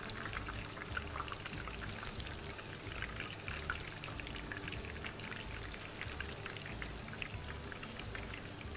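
Chicken pieces frying with spices in a pan on the stove, a steady fine sizzle and crackle as they are stirred.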